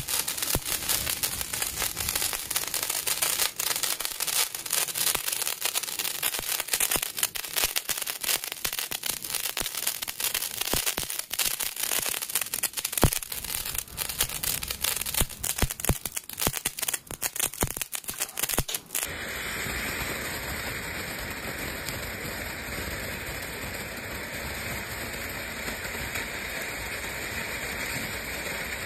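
Handheld firework crackling with dense, rapid spark pops, one louder pop about halfway. About two-thirds of the way through it gives way to the steady hiss of a ground fountain firework spraying sparks.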